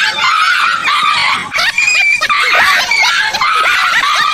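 Dog yelping and screaming in fright at a life-size toy tiger: a rapid string of short, high cries that rise and fall.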